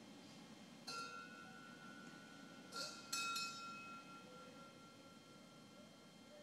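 Metal ciboria on the altar clinking together as they are handled: one clink about a second in, then two close together near three seconds, each leaving a clear metallic ring that fades over a few seconds.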